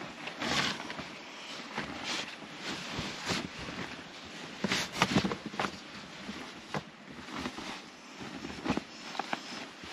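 Bed sheets and a bulky bag of bedding rustling and swishing as they are handled and spread over a mattress, with a few soft knocks, the loudest about five seconds in.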